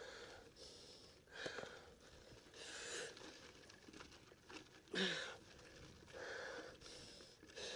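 Mountain biker breathing hard, with strong breaths coming about every second and a half and the loudest about five seconds in.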